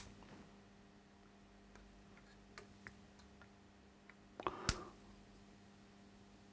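Small clicks and taps of power-supply test leads being pressed against the pins of a circuit board. There is a sharp click at the start and the loudest cluster of clicks about four and a half seconds in, over a low steady hum. A faint thin high whine begins with that cluster.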